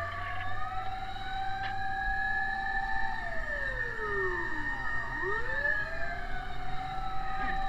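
Two or more fire-truck sirens wailing at once, each rising slowly, holding its pitch, then falling, their cycles out of step with each other. A low steady rumble runs underneath.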